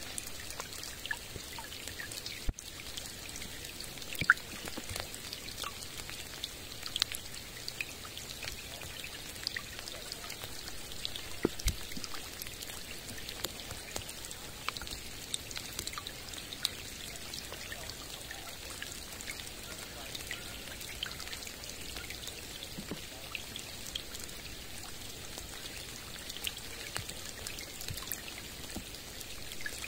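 Rain falling on a lake: a steady hiss with many small drops ticking on the water and a few louder drops landing close by.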